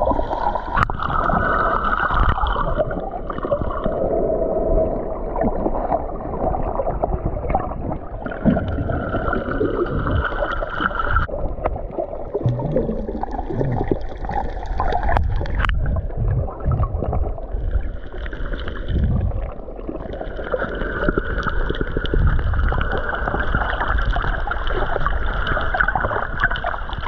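Boat under way at sea: a steady mix of motor noise and water rushing past the hull.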